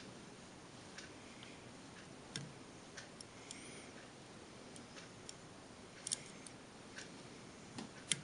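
Faint, sharp metal clicks and ticks at uneven spacing, the loudest near the end: a short hook lock pick working the pin stack of a Master Lock M5 padlock under tension from a tension wrench.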